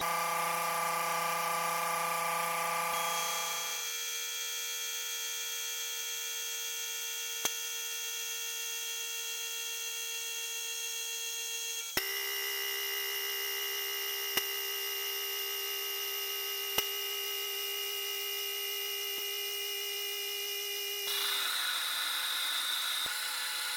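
Mini lathe running, its motor giving a steady whine while it turns mild steel hex bar. The pitch of the whine shifts abruptly a few times, and there are a few sharp ticks.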